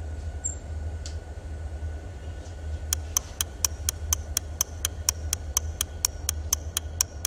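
Fast, even ticking like a clock, about four ticks a second, starting about three seconds in over a steady low hum.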